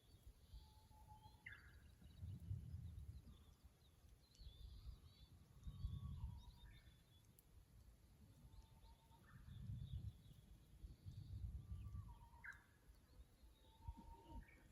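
Japanese bush warbler (uguisu) singing its hoo-hokekyo song, about four times: each song is a held low whistle followed by a quick rising flourish. Other small birds chirp faintly in the background, and low rumbles come and go.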